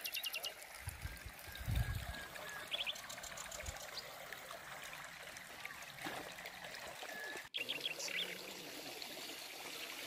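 Spring water trickling and splashing steadily into a stone fountain trough, with a few short bird chirps near the start and about three seconds in. A couple of low thumps come about one to two seconds in.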